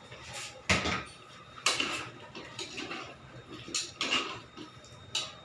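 A spoon stirring potatoes in a metal cooking pot, knocking against the pot about five times.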